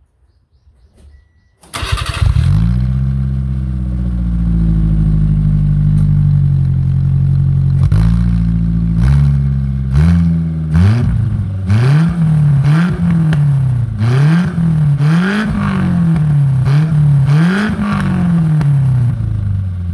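Honda Fit engine breathing through a one-off rear-exit bomber silencer with a racing baffle: it starts just under two seconds in, settles into a steady idle, then is blipped about five times in a row about a second and a half apart, with sharp pops of afterfire in the exhaust, and drops back to idle near the end.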